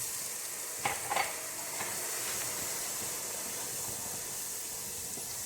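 A cup of water hissing and sizzling in a hot pan of dry-roasted peppercorns and herbs, easing into a steady hiss, with two light knocks about a second in.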